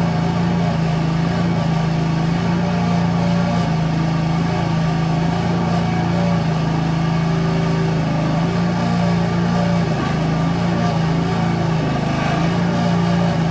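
Small 1-ton mini excavator's engine running steadily while digging, its pitch dipping briefly about halfway through and again near the end as the load changes.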